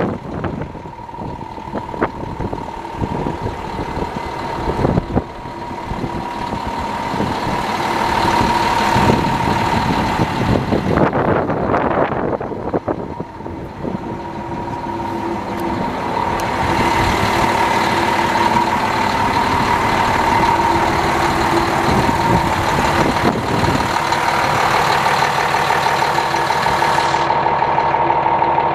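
International 7600 plow truck's diesel engine idling steadily, with a constant whine over the hum. It grows louder about halfway through, and some wind and handling knocks come in the first half.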